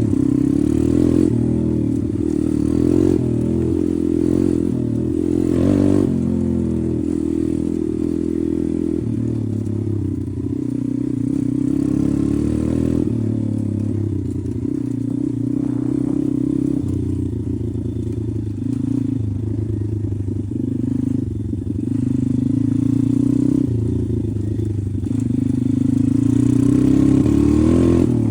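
Pit bike's single-cylinder engine running under way, its revs rising and falling as it is ridden across rough ground, with some rattling.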